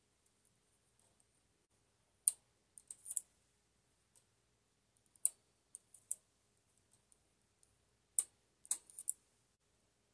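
Light metal clicks of a latch tool against the latch needles of a Brother 965i knitting machine during a hand chain cast-on. The clicks come in three small clusters of two to four, about every three seconds.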